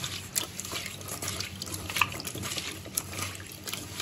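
A hand mixing cut raw potato sticks in a bowl of water: irregular small wet splashes and clicks as the sticks knock together, the sharpest one about two seconds in.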